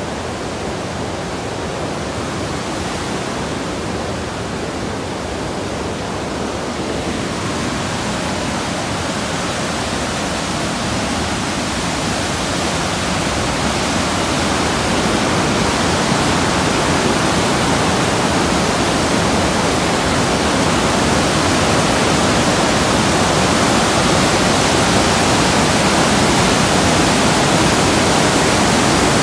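Waterfall and whitewater cascade rushing steadily, the falls running high with snowmelt; the rush grows gradually louder and brighter.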